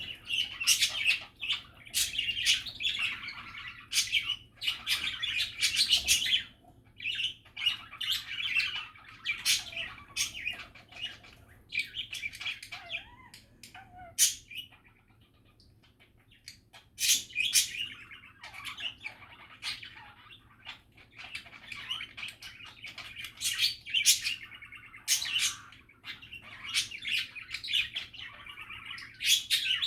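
Budgerigars chattering: a busy run of warbles, chirps and clicks, easing to a brief lull about halfway through before picking up again.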